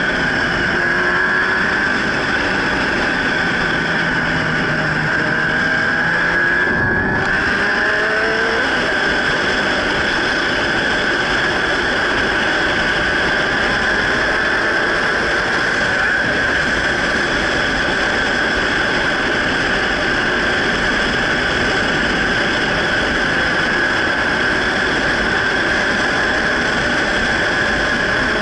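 Motorcycle riding at road speed, heard as a steady rush of wind noise on the microphone with the engine underneath; the engine note rises during the first several seconds as the bike accelerates, then settles into a steady cruise.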